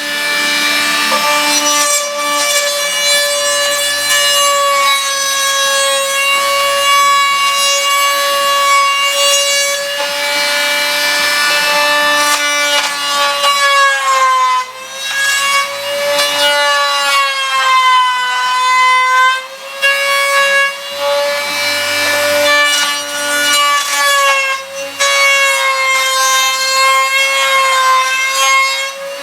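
Small high-speed power tool cutting brace notches into the wooden linings of an acoustic guitar body: a steady high whine with a rasp of cutting wood under it, its pitch sagging briefly as the bit bites, about halfway through and again later.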